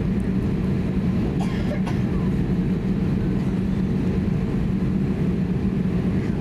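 Steady low rumble of cabin noise inside an Airbus A320neo, even and unchanging in level.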